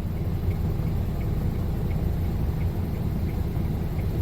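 Steady low engine rumble with faint, evenly spaced light ticks about every two-thirds of a second.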